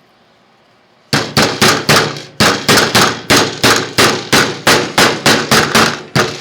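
Soft face hammer tapping the cap strip down onto a new motorcycle battery to seat it: a quick, even run of sharp knocks, about four a second, starting about a second in, with a short break near two seconds.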